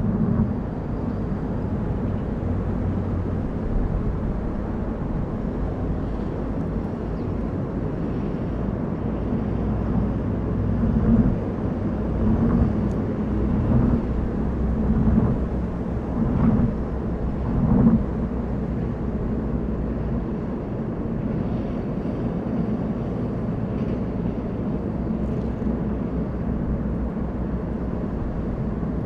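A car driving, heard as a steady low rumble of engine and road noise. Several louder swells come midway through.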